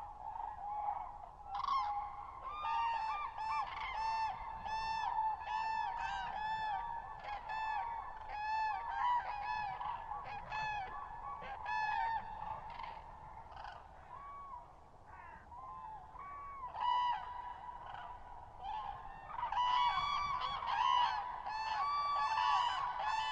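A flock of common cranes calling: many loud, ringing trumpeting calls overlapping one another. The calls thin out a little in the middle and grow denser again near the end.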